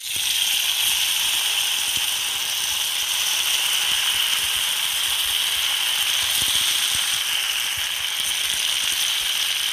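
Cut idli pieces deep-frying in hot oil, a steady sizzle with crackling.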